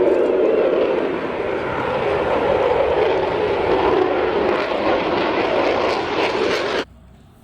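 Airplane engine sound effect: a loud, steady drone that cuts off suddenly near the end.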